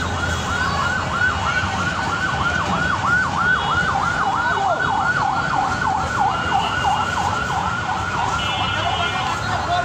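Electronic siren yelping, a pitched wail sweeping down and up about three or four times a second, fading near the end.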